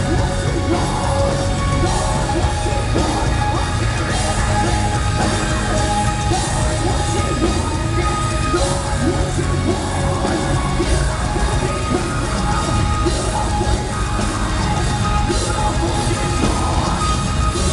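Live metal band playing loud, with the singer's voice, some of it yelled, over electric guitar and drums, recorded from within the crowd.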